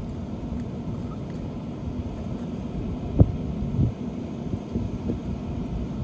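Steady low rumble of wind on the microphone, with a sharp crack about three seconds in and a few softer knocks after it.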